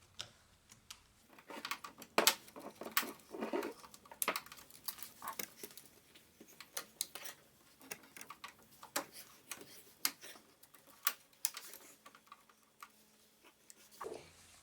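Scissors snipping old plastic credit cards into door shims: a run of irregular sharp clicks and snaps.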